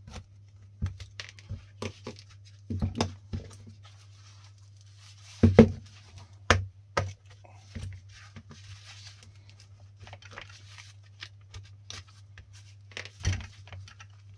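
Plastic housing of a cordless mini angle grinder being pried open with a screwdriver and handled: irregular clicks, clacks and knocks of plastic, the loudest about five and a half seconds in and again near the end, over a low steady hum.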